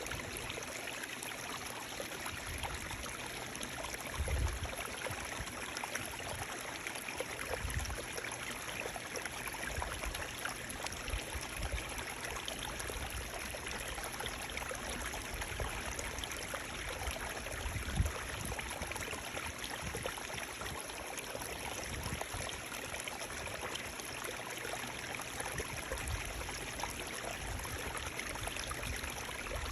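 Running water flowing steadily with an even rushing hiss, like a small stream, with a few short low bumps, the clearest about four seconds and eighteen seconds in.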